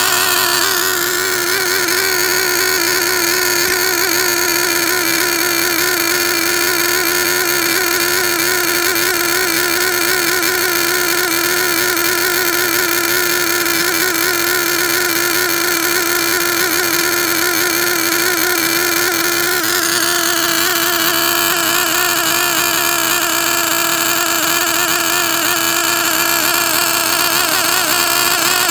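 OS Max R21 3.5 cc two-stroke glow (nitro) engine running steadily at a constant high pitch on its very rich factory carburettor setting, during break-in. Its tone shifts slightly about twenty seconds in.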